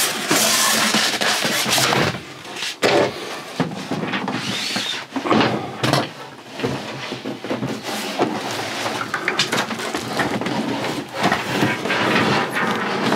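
Irregular knocks, bumps and scraping as a 12 V compressor fridge is pushed and shifted into a cabinet opening that is too tight for it, rubbing against the edges.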